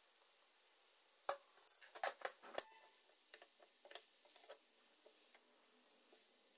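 Silicone spatula tapping and scraping against a non-stick pan while stirring fried rice: a sharp knock about a second in, three more quickly after, then a few lighter ticks.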